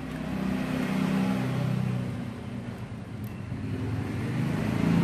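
A motor engine running, with a low hum that swells in loudness about a second in and again near the end.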